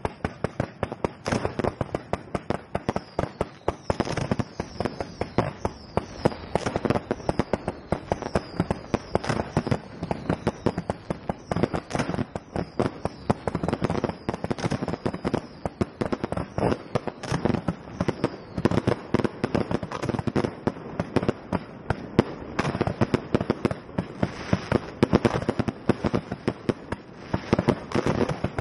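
Fireworks being fired at close range from ground racks: a rapid, continuous run of sharp bangs, several a second, with short falling whistles among them for the first half or so.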